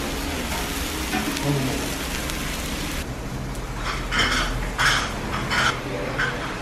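Strips of beef sizzling on a tabletop Korean barbecue grill plate with a steady hiss. About three seconds in, the sizzle cuts off and a few short, separate sounds follow.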